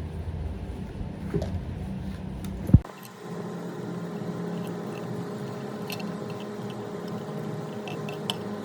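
A small electric motor running with a steady hum, with a sharp click a little under three seconds in, after which the low rumble drops away and the hum goes on.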